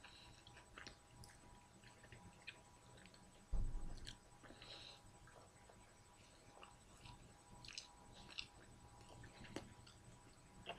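Faint chewing and small wet mouth clicks of a person eating pieces of lamb from a yiros wrap, with one dull thump about three and a half seconds in.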